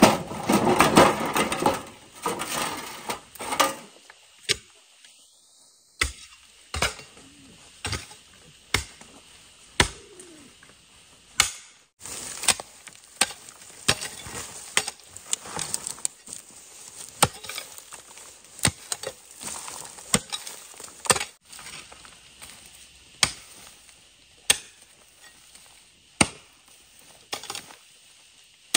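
A hoe chopping into stony soil, one stroke about every second, each a sharp thud with scattering earth. At the start, the rattle of a wheelbarrow being pushed over rough ground.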